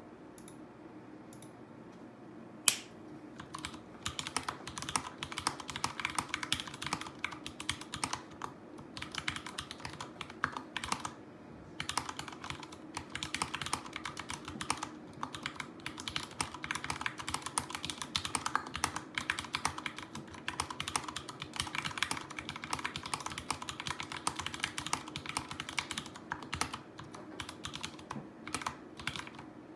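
Vortex Pok3r mechanical keyboard with lubed Cherry MX Brown switches and lubed, tape-modded stabilizers being typed on fast, a dense run of key clacks with short pauses. A single sharp louder click comes a little before the typing starts.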